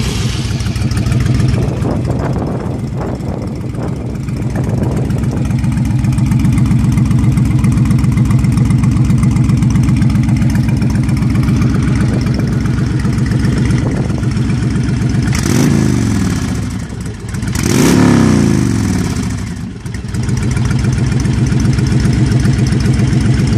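Honda VTX1300C's V-twin idling loudly through a freshly installed Cobra Swept aftermarket exhaust, with two quick throttle blips about two-thirds of the way in, each rising and falling back to idle.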